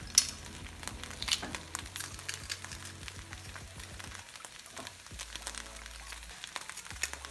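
Broccolini sautéing in olive oil in a nonstick frying pan, a steady light sizzle, with a couple of sharp clicks in the first second or two.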